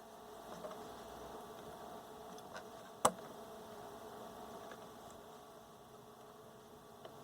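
Faint steady hum with one sharp click about three seconds in and a softer tick near the end. No sound comes from the radio: it is dead, which is later traced to an intermittent break in its AC line cord.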